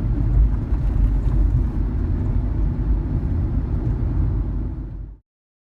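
Road noise inside a moving car's cabin: a steady low rumble of tyres and engine over an uneven road. It fades quickly and cuts to silence about five seconds in.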